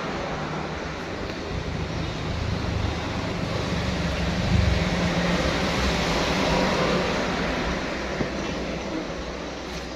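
Road-traffic rumble with a low engine drone, swelling to its loudest about halfway through and fading again, as a vehicle passes.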